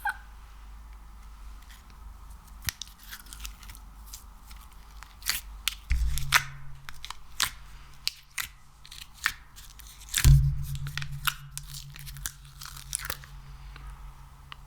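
Crisp crackles and sticky pops of an ASMR material, slime or wax, being squeezed and pulled by hand close to the microphone. Two heavy thumps come about six and ten seconds in, each followed by a low hum.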